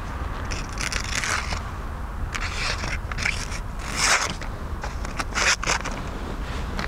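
Herbertz 585518 fixed-blade knife slicing through a sheet of paper in several short rasping strokes, spaced about a second apart: a paper-cutting sharpness test, and the blade still cuts well enough after chopping wood.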